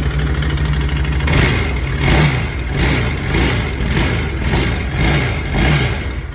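Arctic Cat 1000cc engine idling, then revved in a run of about eight quick throttle blips while in gear, without the machine moving: the clutch has failed.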